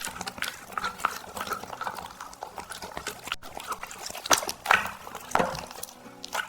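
Black Labrador chewing soft bread buns: a steady run of wet mouth smacks and chewing clicks, with a few louder smacks in the second half.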